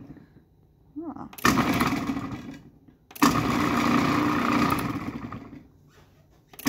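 Breville Sous Chef 16 food processor pulsed twice while its slicing blade cuts limes. Each time the motor starts suddenly, runs for a second or two and winds down; a third pulse starts at the very end.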